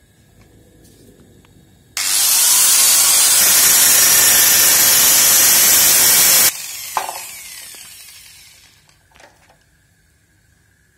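Power grinder grinding down a washing-machine motor's shaft to fit a fan blade's hole: a loud, even grinding noise for about four and a half seconds that starts and cuts off abruptly, then the tool winds down over a couple of seconds, with a couple of light clicks.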